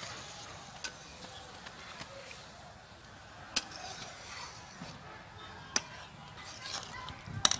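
A metal spatula stirring a fish and potato curry in a metal kadai, knocking sharply against the pan four times: about a second in, twice in the middle and once near the end.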